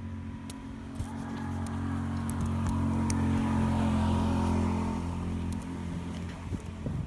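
A motor vehicle passing by: a steady low engine hum that swells to its loudest about three to four seconds in, then fades away.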